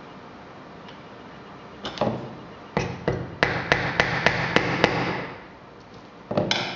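Small cross-pein pin hammer tapping pins through a brass hasp into a wooden box. A few single taps come first, then a quick run of about six taps, three or four a second, and one more knock near the end.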